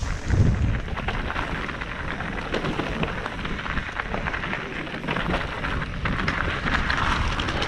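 Mountain bike rolling fast down a rough, rocky trail: tyres crunching over loose stones and gravel, with a constant clatter of small knocks from the bike and a steady low rumble. A harder knock about half a second in is the loudest moment.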